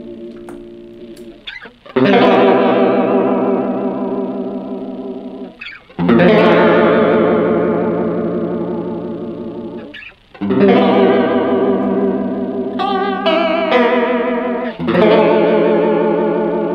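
Electric guitar strumming chords through a chorus pedal, with a shimmering, wavering sound. Four chords come about four seconds apart, each left to ring out and fade, with a few quick extra strums between the third and fourth.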